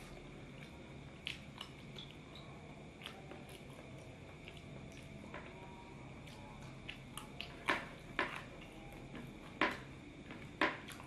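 A man eating saucy noodles with his fingers: soft chewing with short wet smacks and clicks, over a faint steady hum. The smacks grow louder and come more often in the last few seconds.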